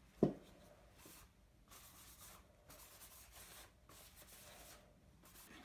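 A soft knock just after the start, then several faint strokes of a paper towel rubbing over the graphite-powder finish of a wooden prop part.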